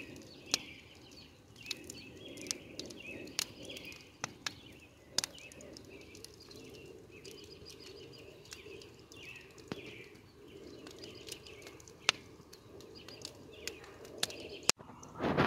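Small birds chirping and warbling repeatedly, over a steady low rush of wind, with scattered sharp clicks throughout. Near the end the sound cuts out for an instant, and a louder rush follows.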